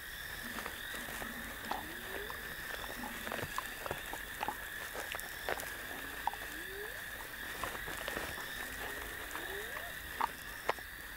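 Night-time chorus of insects and frogs: a steady high chirring, with a few short low calls that rise in pitch and scattered sharp clicks.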